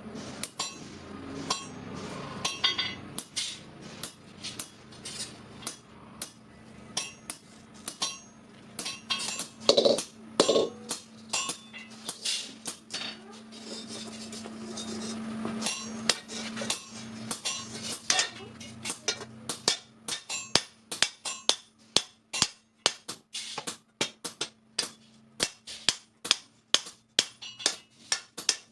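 Metal hammer blows on a sheet-iron kadai. The strikes come irregularly at first, then settle after about twenty seconds into a steady rhythm of about two a second.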